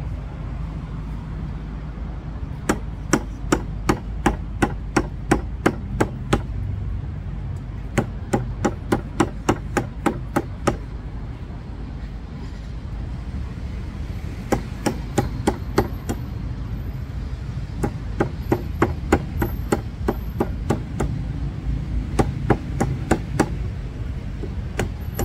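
Large knife chopping into a young green coconut: sharp strikes about three a second, in several runs with short pauses between, as the top of the coconut is hacked open.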